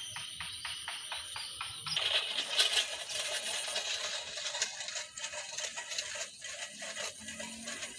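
Bird-scaring tin cans filled with small stones, rattling as their rope is pulled. A light regular ticking, about five a second, gives way about two seconds in to a dense, loud metallic clatter that carries on.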